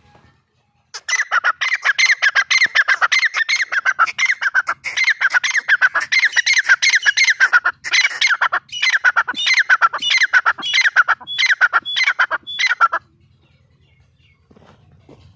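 Grey francolin calling loudly: a long, fast run of harsh, ringing repeated notes that starts about a second in, turns into more spaced, phrased notes in its second half, and stops abruptly about 13 seconds in.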